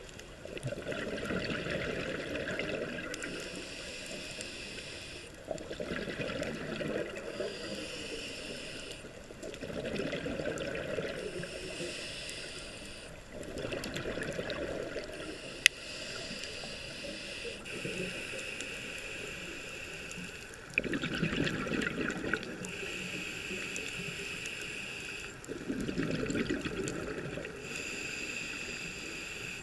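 Scuba diver breathing through a regulator underwater: bubbly, gurgling exhalations alternating with hissing inhalations, several breath cycles a few seconds apart. One sharp click about halfway through.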